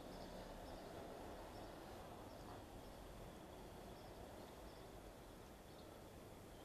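Near silence: faint outdoor ambience with scattered, faint high chirps of small birds.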